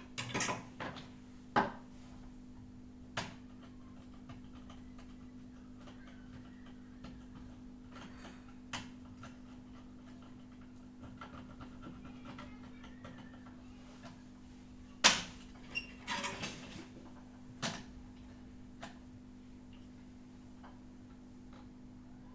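Steady low electrical hum with scattered clicks and knocks, the loudest about fifteen seconds in, from tools and parts being handled on a workbench during an electronics repair.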